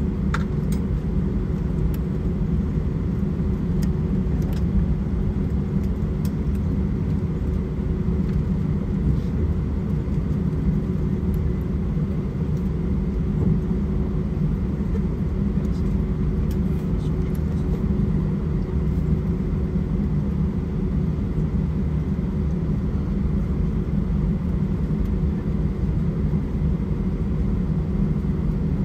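Steady low rumble and hum of cabin noise in an Airbus A319-131 taxiing on its idling IAE V2500 engines, with a faint steady tone above the rumble.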